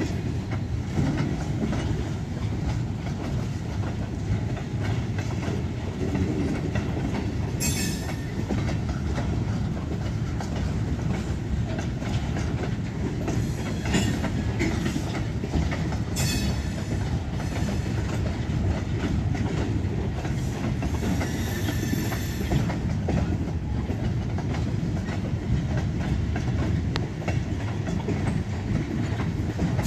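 Open-top gondola freight cars rolling by, a steady rumble with the wheels clicking over the rail joints. A few brief high-pitched squeals cut in, the longest lasting about a second and a half.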